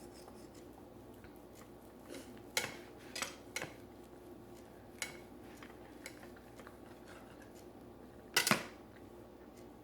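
Metal cutlery clinking and scraping on a dinner plate as steak dinner is cut and picked up: a handful of short, scattered sounds, the loudest near the end.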